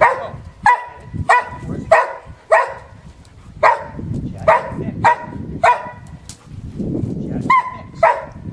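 A dog barking repeatedly: about a dozen short, sharp barks, roughly two a second, with a pause of nearly two seconds after the middle.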